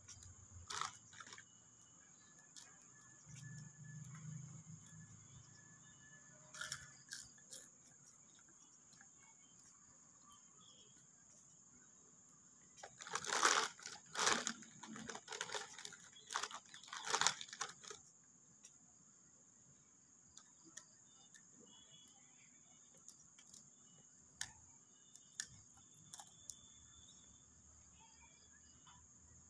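Mostly quiet with a steady high-pitched whine throughout. From about halfway, several seconds of sharp crackling and rustling noises.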